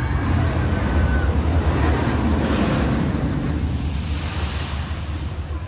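Wind buffeting the microphone: a steady low rumble with a rushing noise that swells in the middle and eases toward the end.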